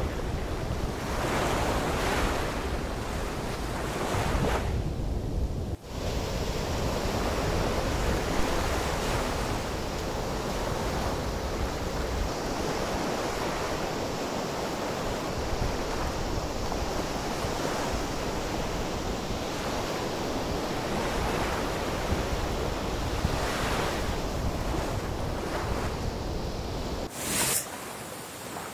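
Small waves breaking and washing up on a sandy shore, the surf swelling and fading every few seconds, with wind buffeting the microphone, heaviest in the first half.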